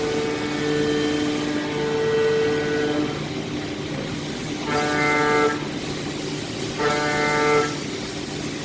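Cutter chatter in 6061 aluminium on a drilling or milling machine: a pitched whine with many overtones over the machine's running noise. It sounds for about three seconds, drops away, then returns in two short bursts under a second each as the tool vibrates against the workpiece.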